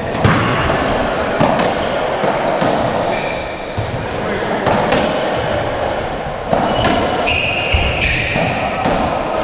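Racketball rally on a squash court: the hollow rubber ball struck by rackets and smacking off the walls and floor, a sharp hit every half second to a second, with high squeaks of shoes on the wooden floor in the later part.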